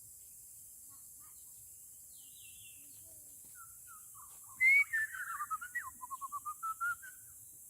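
A bird singing: a loud high whistled note about four and a half seconds in, then a few falling notes and a quick run of short repeated notes that climbs slightly before stopping.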